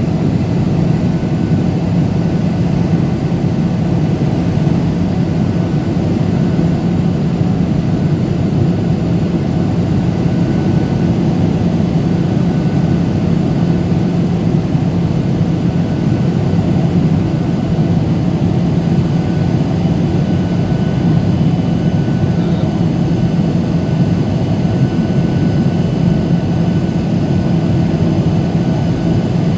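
Cabin noise of a jet airliner in flight, heard from a window seat: the turbofan engines and rushing air make an even, unbroken drone. A steady low hum sits under it, with faint thin whines higher up.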